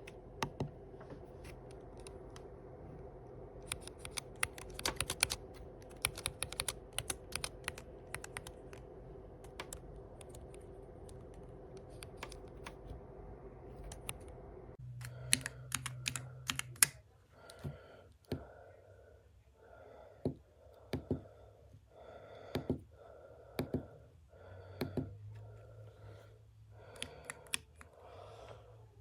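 Keys being pressed on a compact keypad with magnetic Hall-effect linear switches: irregular clacks, in quick clusters over a faint steady hum in the first half, then spaced single presses about once a second after the background changes about halfway through.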